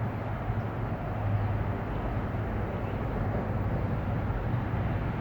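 Steady low background rumble with a constant hum, with no clear events.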